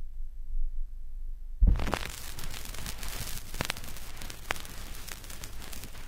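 Vinyl record playback before the music: a low mains hum, then about one and a half seconds in a thump as the stylus lands on the record, followed by steady surface hiss and crackle with a few sharp pops.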